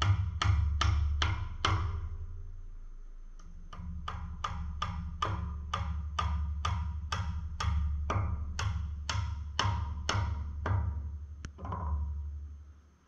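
Hammer blows on the rough-sawn timber of a log sled frame, about three a second. They pause about two seconds in, start again with a couple of light taps, then run on at full strength until near the end.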